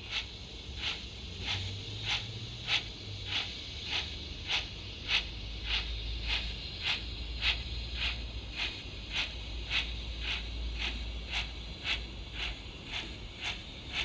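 Sound-fitted Hornby OO gauge 'Lion' model locomotive playing its Zimo decoder's steam sound through a small built-in speaker: a slow, regular steam chuff, a little under two beats a second, quickening slightly as it goes.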